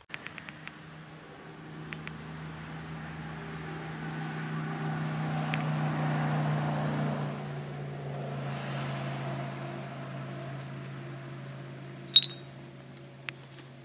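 A low, steady engine-like hum with a fixed pitch, swelling to its loudest about six seconds in and then fading. A sharp click about twelve seconds in, and a fainter one a second later.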